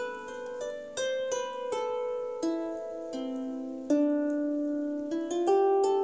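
Harp played by hand: single plucked notes, with the odd pair together, in a slow melody in the middle register, each note ringing on under the next.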